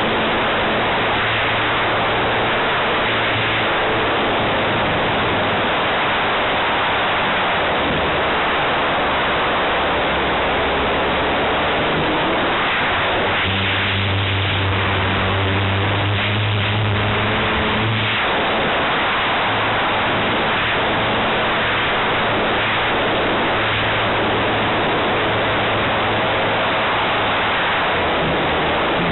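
Onboard audio of a 78-inch Extra aerobatic RC plane in flight: heavy wind rush over the camera mixed with the drone of the motor and propeller. The drone's pitch and strength shift as the plane flies its manoeuvres, and it is loudest about 14 to 18 seconds in.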